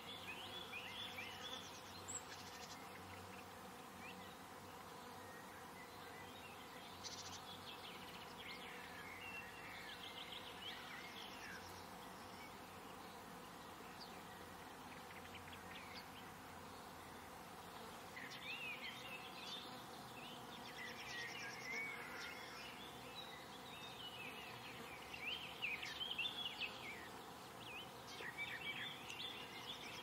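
Faint summer garden ambience: small birds singing and twittering in short bursts, busiest in the second half, over a steady hum of buzzing insects.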